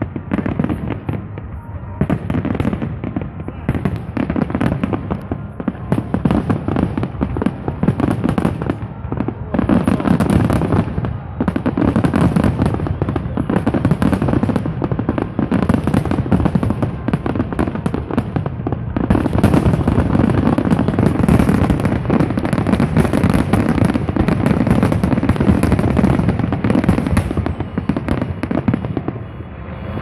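Large fireworks display: a dense, continuous barrage of shell bursts, rapid bangs packed close together under a steady high crackle. The barrage thins out near the end.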